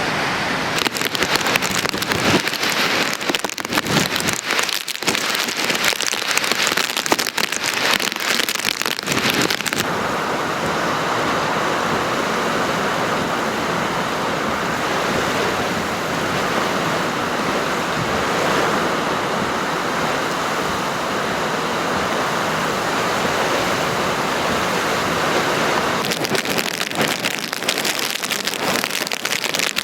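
Hurricane wind and rain, gusts buffeting the microphone during the first third and again near the end, with a steadier rushing roar in between.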